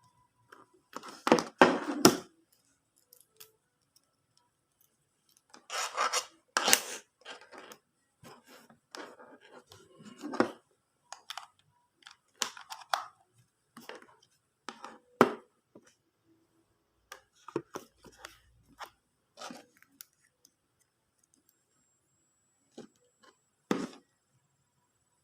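Irregular handling noises, a series of short scrapes, rubs and clicks. Several are louder, near the start, around a quarter and a third of the way in, and once more near the end.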